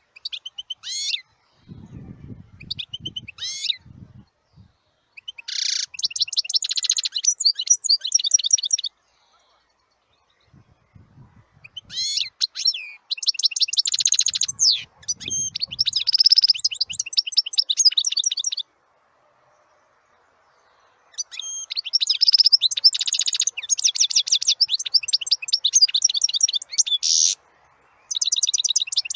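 A songbird singing in several bouts of rapid twittering chirps and trills, each bout lasting a few seconds and separated by brief pauses.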